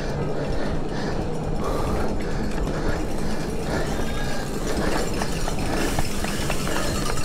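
Bicycle freewheel hub ticking as the rider coasts, over a steady rumble of wind and road noise.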